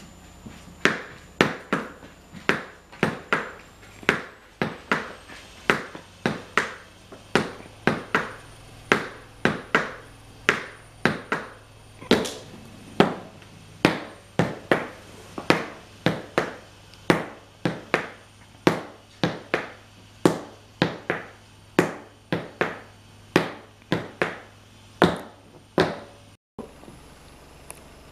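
Irish dance hard shoes beating treble drills on a wood floor: sharp taps of the shoe tips in a steady rhythm, about two a second, pausing briefly near the end.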